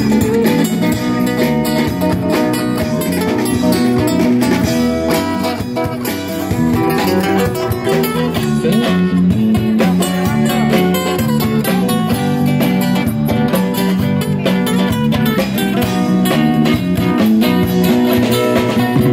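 Live street band playing an instrumental passage: guitar over bass guitar and a drum kit, with no singing.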